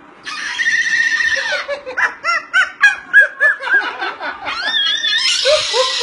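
Moluccan cockatoo giving a long screech, then a quick string of short laugh-like squawks, about three a second, then a second long screech near the end.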